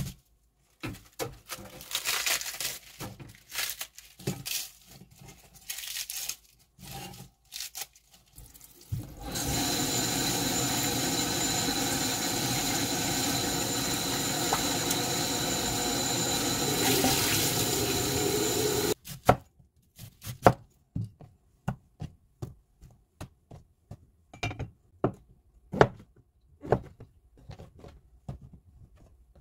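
Lettuce leaves rustling as they are handled in a stainless steel bowl, then a kitchen tap running steadily for about ten seconds as the lettuce is rinsed in a steel colander, cutting off suddenly. After that, scattered light knocks and clicks as sliced vegetables are laid into a frying pan.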